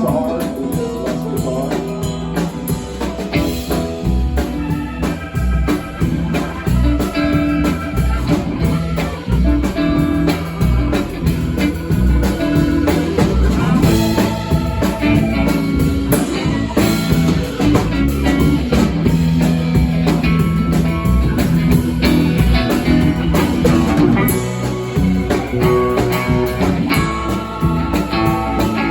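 Live band playing blues-rock, with guitar over bass and drum kit.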